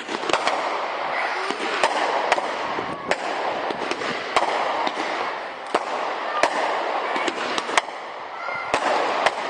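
Aerial firework display: about a dozen sharp bangs at irregular intervals over a continuous dense crackle and hiss of bursting shells.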